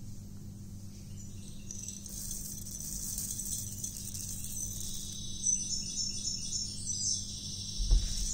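Soft background music with high, bright notes over a steady low hum.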